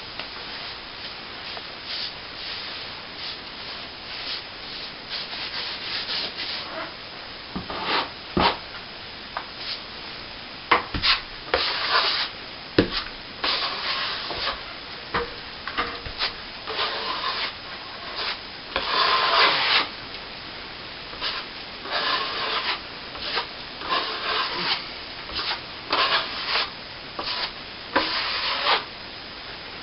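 Steel plastering trowel scraping and smoothing setting cornice cement on a plasterboard ceiling patch, in irregular strokes of varying length. A few sharp taps of the blade come between the strokes.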